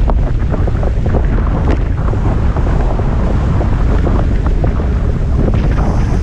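Heavy wind buffeting the microphone over the rushing and crackling splash of spray from a windsurf board planing fast across the water. A faint high steady whistle joins near the end.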